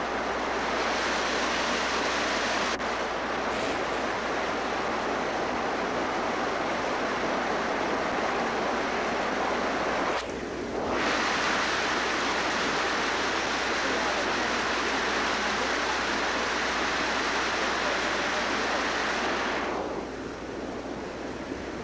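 Steady rushing of a flooded creek's fast-moving water. It breaks off suddenly for about a second near the middle and drops away near the end.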